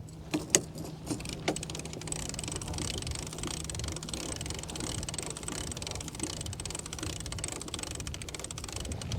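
A few sharp knocks in the first second and a half, then a steady rush of wind and water around a sailing yacht under sail as it gathers speed.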